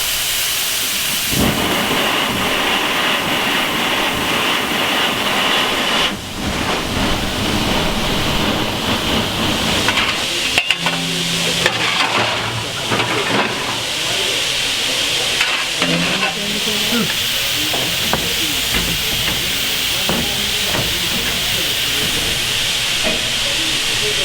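Steam hissing steadily from a South African Class 26 4-8-4 steam locomotive raising steam on its first steam test after restoration. A few short knocks and clanks come through near the middle.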